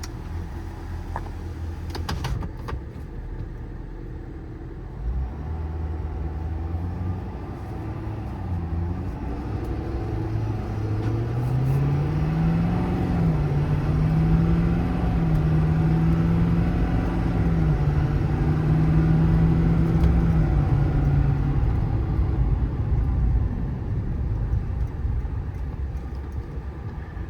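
Ford 6.7 Power Stroke V8 turbo-diesel heard from inside the F-550's cab as the truck pulls away and accelerates. The engine note climbs with brief dips at the automatic's shifts, holds steady at speed, then eases off near the end.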